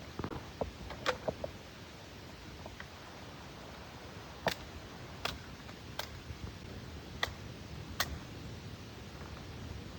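Sharp knocks or clicks over a steady low background: a few light taps in the first second and a half, then five sharp knocks spaced about a second apart from about four to eight seconds in.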